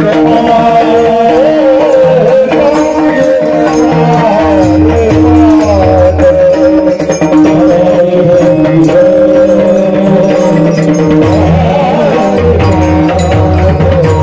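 Devotional folk singing: a voice holding a long, wavering alaap over a steady held drone, with hand-drum and percussion strokes throughout.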